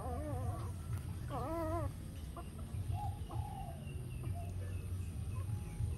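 Newborn puppies whimpering: two wavering, high-pitched cries in the first two seconds, then a shorter, fainter one about three seconds in, over a steady low rumble.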